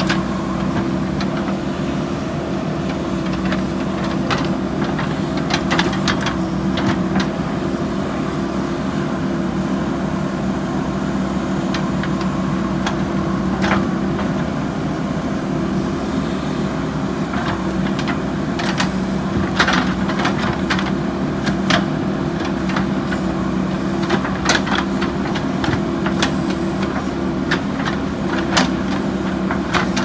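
JCB 3DX backhoe loader's diesel engine running steadily under digging load as the backhoe arm works. Scattered knocks and clatter come from the bucket digging into earth and stones.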